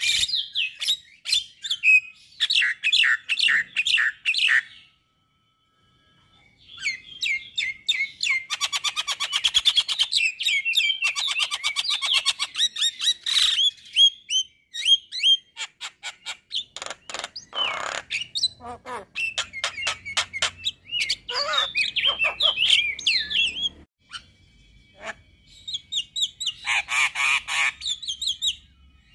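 Male Javan myna singing: bursts of varied chirps, whistles and harsh squawks, with a fast rattling run in the middle. It falls silent briefly about five seconds in.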